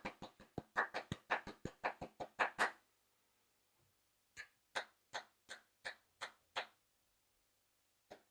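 One person clapping their hands: a fast run of about six claps a second lasting nearly three seconds, a short pause, then seven slower claps about three a second.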